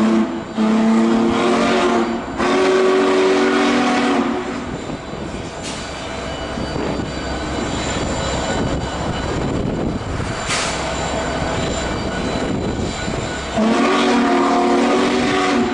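Union Pacific 4014 Big Boy steam locomotive's chime whistle sounding a chord of several pitches. One blast ends about half a second in, then come two blasts of under two seconds each, then a long blast near the end. Between the second and last blasts there is a steady rush of steam.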